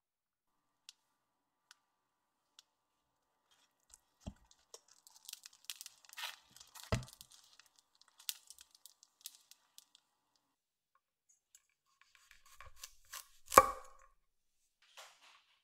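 Bread slices being handled on a ridged grill pan: scattered crisp taps and crackles, with a soft thump about seven seconds in. Near the end a kitchen knife cuts through a garlic clove onto a wooden cutting board with one sharp chop, the loudest sound.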